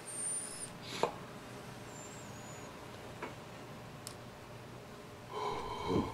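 A man drawing on a vape cartridge on its battery: a brief faint high whistle at the start, a click about a second in, then a louder breath out with a hum near the end as the vapour is exhaled.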